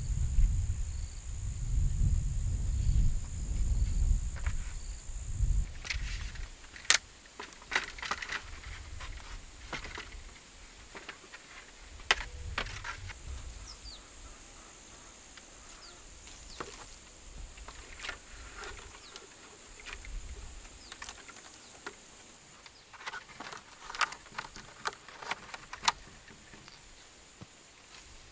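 Bamboo trellis poles knocking and clattering, with rustling as they are handled, over a steady high-pitched insect drone that drops out for a couple of seconds about six seconds in. A low rumble fills the first five seconds.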